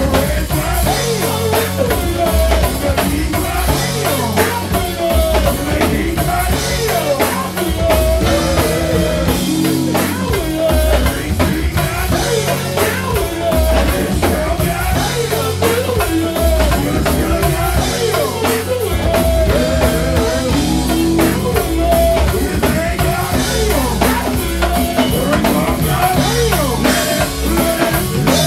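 Go-go band playing live: drum kit and congas keep up a steady, dense beat under electric guitar and other pitched parts.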